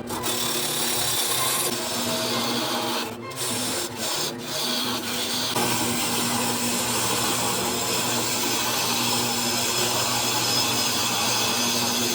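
Electric power tool working a piece of wood: the motor runs steadily while the tool cuts or abrades the wood in a continuous rasping hiss, easing off briefly a few times around three to four and a half seconds in.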